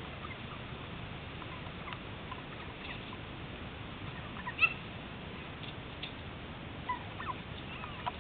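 Wild turkeys feeding close by, giving a few short soft clucks over a steady hiss. The loudest call comes about halfway through, with a few more near the end.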